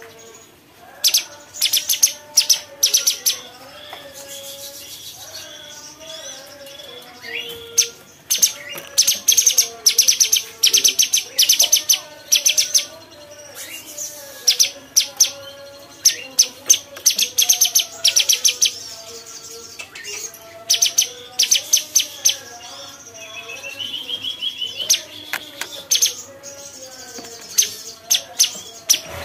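Cucak cungkok, a bulbul, singing in repeated bursts of very fast, high rattling notes. A softer, lower warbling song runs underneath, and a short rising trill comes about three-quarters of the way through.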